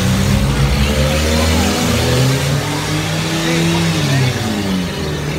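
Compact demolition derby cars' engines revving hard on the dirt arena, several at once, their pitch climbing about two seconds in and dropping back near the end, over crowd noise.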